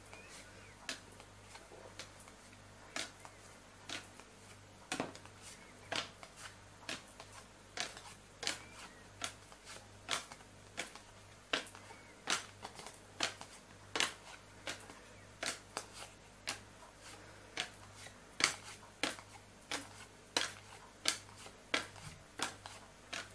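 Playing cards dropping one at a time onto a table, each landing with a light, sharp slap. The slaps come irregularly, sparse at first and then about one or two a second, over a faint steady low hum.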